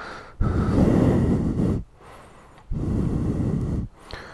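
A man's heavy breathing close to a body-worn microphone: two long, noisy exhales, each a little over a second, with a short pause between them.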